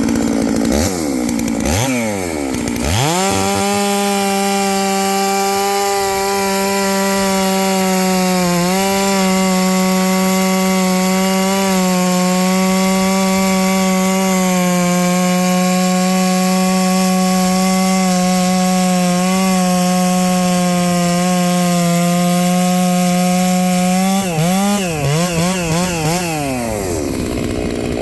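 Stihl 660-clone two-stroke chainsaw revved up and down a few times, then held at full throttle cutting into hard, dry wood for about twenty seconds, its pitch steady apart from small dips. Near the end it revs up and down again as it comes off the cut.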